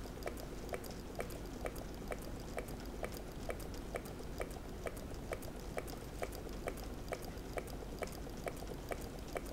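Meccano model Stirling engine running, its mechanism clicking in an even rhythm, about three clicks a second.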